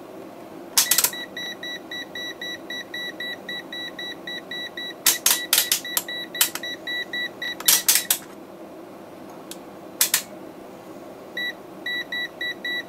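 Mestek DM100C multimeter's buzzer beeping rapidly, about five short beeps a second: its warning that the test lead is in the wrong socket for the selected range. A few sharp clicks come as the range dial is turned. The beeping stops a little after halfway and starts again near the end.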